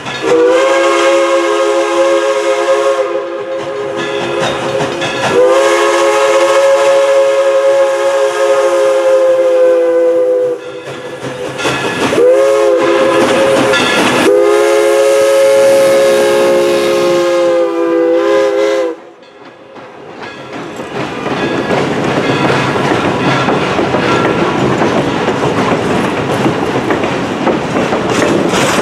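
Steam locomotive chime whistle sounding several notes at once in a long, long, short, long pattern, the grade-crossing signal. After the whistle stops, the passenger coaches roll past, their wheels clacking over the rail joints.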